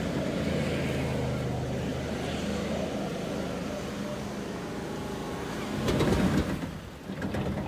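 2020 Chevrolet Silverado Trail Boss pickup's engine running steadily under power while the truck slides in circles on loose dirt, heard from outside. About six seconds in there is a louder rush of noise as it passes close with the rear tyres spraying dirt, and then the sound drops away.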